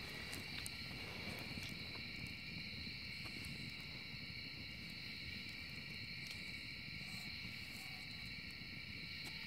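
Steady high-pitched chirring of crickets at night, with scattered sharp crackles and pops from a wood fire burning in a metal fire pit.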